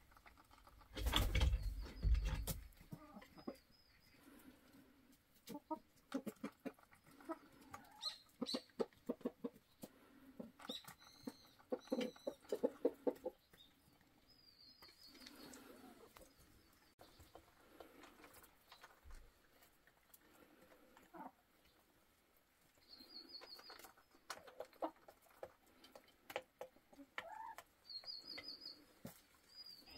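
Hens clucking softly and giving short high trilling calls, with runs of quick light tapping. A loud low bump comes about a second in.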